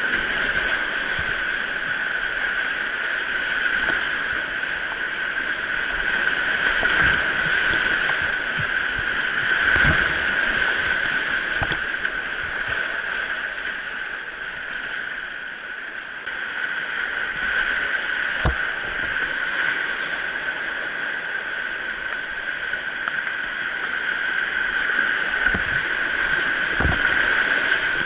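Steady rush of a valley stream's flowing water, with a few sharp knocks here and there.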